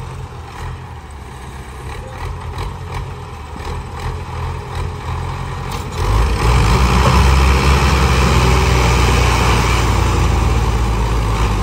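Tractor diesel engines running at low revs, then opened up hard about six seconds in and held at high revs under heavy load as they strain to pull a loaded sugarcane trolley.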